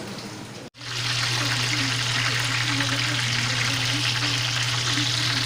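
Chicken wings deep-frying in hot oil, a dense, steady sizzle, with a low steady hum underneath. It starts loud right after a brief cut-out about a second in.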